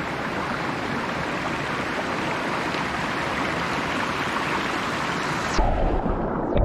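Water of a mountain stream rushing steadily. Near the end it cuts off suddenly and a low rumble takes over.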